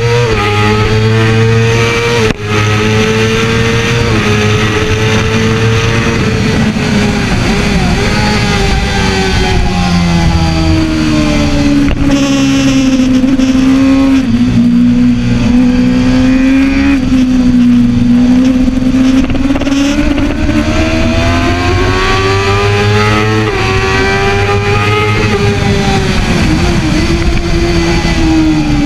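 2013 Kawasaki ZX-6R's inline-four engine at high revs heard from onboard at speed, its pitch sliding down and climbing back up again and again as the rider brakes and accelerates through the corners. The sound dips for a moment about two seconds in.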